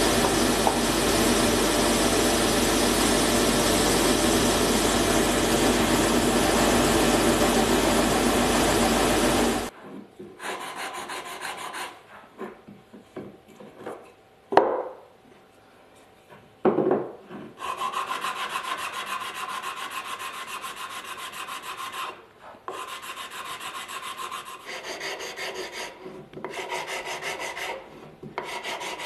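A workshop machine runs with a loud, steady noise for about ten seconds and then cuts off suddenly. Two sharp knocks follow. Then a hexagonal wooden pot is hand-sanded with sandpaper: a scratchy rubbing that stops and starts.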